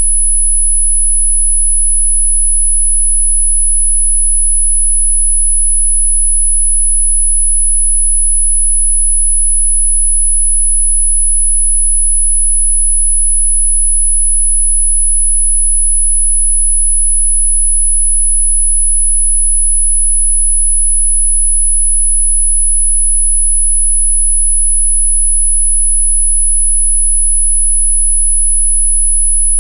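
A continuous, very high-pitched pure sine tone, held at one steady pitch and level throughout. It is an electronically generated 'healing frequency' tone.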